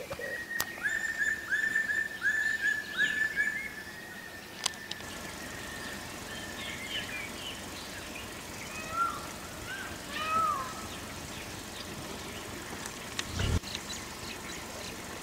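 Forest birds singing: a quick series of repeated whistled notes over a steady high tone for the first few seconds, then scattered chirps and calls. A brief low thump near the end.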